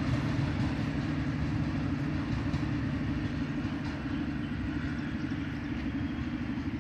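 Passenger train moving away along the track: a steady low rumble that fades slowly as it recedes.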